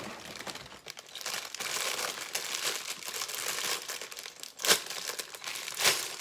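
Plastic LEGO parts bags crinkling and rustling as they are handled and pulled out of the box, with two sharper, louder crinkles about a second apart near the end.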